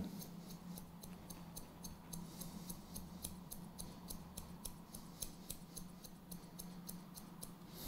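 Haircutting scissors snipping through hair, a quick, even run of small crisp snips, about four a second.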